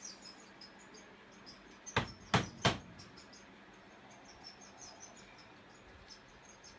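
Three sharp taps in quick succession about two seconds in, over a faint background of crickets chirping.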